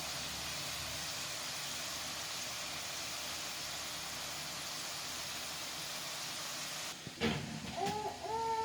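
Flour-coated Indomie noodles deep-frying in hot oil: a steady sizzling hiss that cuts off suddenly about seven seconds in. A short knock follows, then a child's singing starts near the end.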